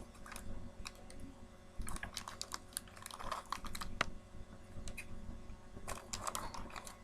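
A small plastic blind bag crinkling and rustling as it is handled and tugged at, with many small sharp clicks and crackles.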